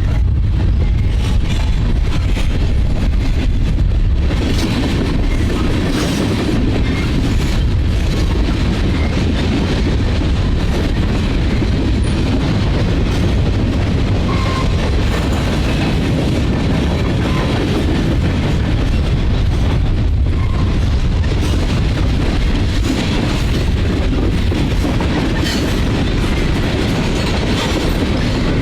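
CSX manifest freight train rolling past: a steady, loud rumble of wheels on rail, with repeated clicks as the wheels cross rail joints.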